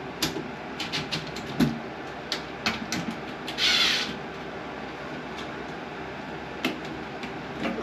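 Scattered light clicks and knocks of hands handling a bathroom exhaust fan's housing and wiring, with one short scraping rustle about three and a half seconds in, over a steady background hum.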